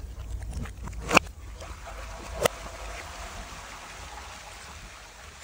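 Liquid from smashed glass bottles trickling and splashing down concrete steps, with two sharp clinks of glass, the first a little over a second in and the second about a second later.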